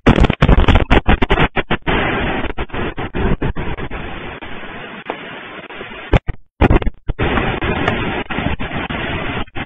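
Strong explosion of Stromboli volcano: a sudden loud blast with a burst of sharp cracks over the first two seconds, then a dense, continuous rushing noise that cuts out briefly twice about six and seven seconds in.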